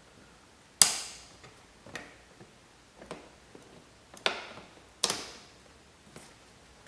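Sharp clicks and taps of a metal punch being worked against a plastic button-head rivet in a car door panel to snap its head off. About six separate clicks, the loudest about a second in and two more strong ones around four and five seconds in.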